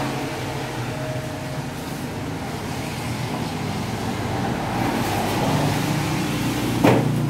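Steady low mechanical hum over a haze of background noise, growing a little stronger about two-thirds of the way through, with one sharp knock near the end.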